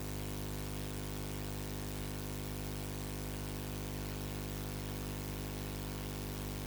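Steady electrical hiss with a low mains hum underneath: noise from the recording chain with no programme sound on it.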